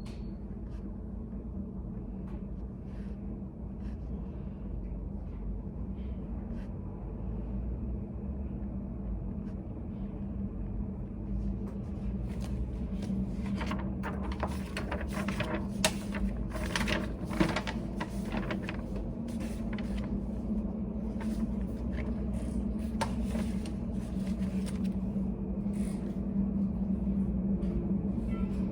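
Study cafe room ambience: a steady low hum with scattered light clicks and taps, busiest about halfway through.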